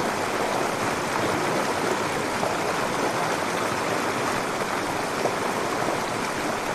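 Steady rush of moving water, an even hiss without a break.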